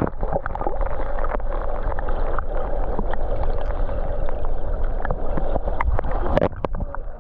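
Water gurgling and sloshing around a kayak, with a deep rumble underneath and many scattered small knocks and clicks.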